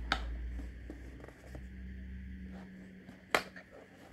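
Cardboard perfume box handled as a star-shaped glass perfume bottle is lifted out of it: light rustling and a few sharp clicks and knocks, the loudest a little after three seconds in.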